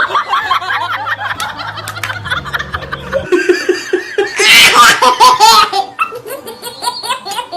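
People laughing in repeated bursts. The loudest, shrillest laughter comes a little past halfway.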